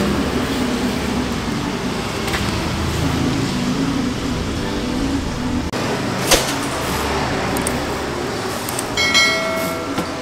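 Steady background noise of a busy outdoor market, with a single sharp click about six seconds in and a short bell-like chime near the end: the click-and-ding sound effect of a subscribe-button animation.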